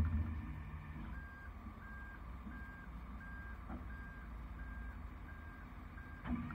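Vehicle back-up alarm beeping steadily, about eight short even beeps roughly one and a half per second, over the low steady rumble of a truck engine running.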